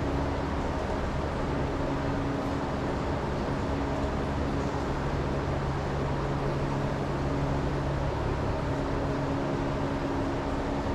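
A steady mechanical hum: a low rumble holding a few even tones, the lowest of which drops out about eight seconds in.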